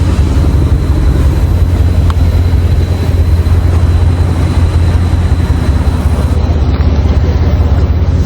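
Dodge Charger Scat Pack's 6.4-litre 392 HEMI V8 with a mid-muffler delete, cruising at a steady engine speed: a loud, even low exhaust drone with no revving.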